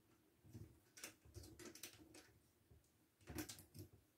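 Faint, scattered clicks and light taps from a hand handling a ring light's tripod stand, loudest about three and a half seconds in.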